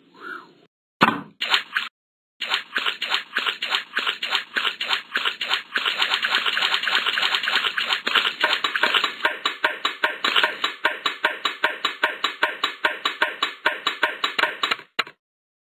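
Cartoon footstep sound effect: quick, even clicks at about five a second, kept up for roughly twelve seconds, as a figure walks over and climbs a tall ladder. A few short clicks come first, about a second in.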